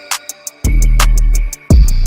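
Background hip-hop-style music with a steady beat of hi-hat ticks and deep bass drum; the bass drops out briefly twice.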